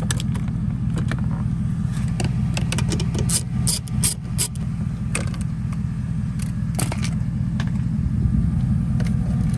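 Scattered sharp metallic clicks and clinks of hand tools on the door panel's 10 mm bolts, over a steady low hum.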